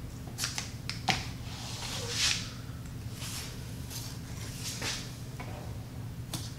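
Double-sided tape being pulled off its roll and pressed down along the edge of a backing board, with a few sharp clicks and scissor snips, over a steady low hum.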